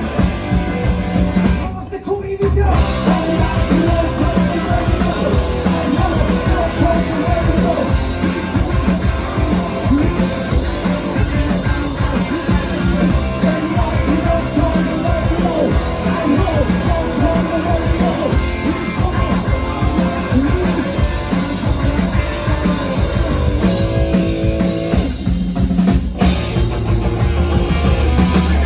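Rock band playing live: electric guitar and drum kit with a sung vocal, loud and continuous, with a short break in the playing about two seconds in.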